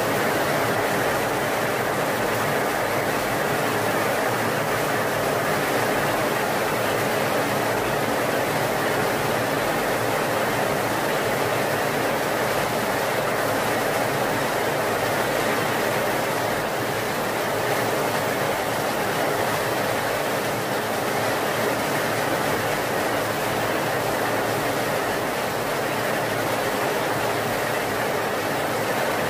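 Heavy rain pouring down steadily, a dense even hiss that does not let up.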